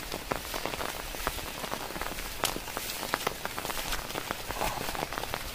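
Heavy rain falling steadily on the surface of a pond, many separate drop ticks over a steady hiss.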